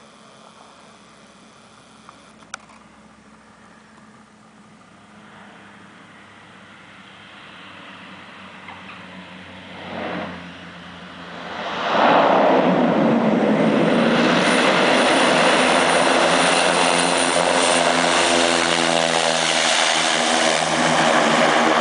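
Cessna 208 Caravan's PT6A turboprop engine and propeller, faint at first and growing louder as the aircraft lands and rolls along the runway. It turns sharply louder about twelve seconds in and stays loud as the aircraft passes close.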